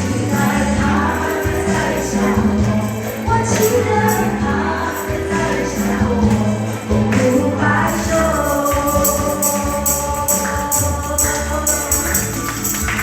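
Background music: an instrumental stretch of a Chinese pop song's backing track between sung lines, with a steady beat and held tones.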